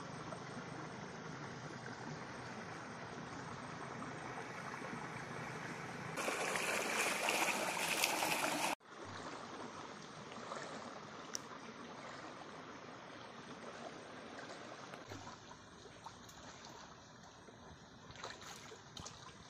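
Running water: a steady rushing, louder for a couple of seconds about six seconds in and cutting off suddenly, then quieter trickling with a few faint clicks.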